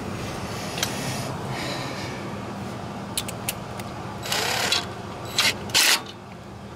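Cordless driver with a socket run in a few short bursts on a clutch pressure plate's bolts, with sharp metal clicks just before, over a steady low hum.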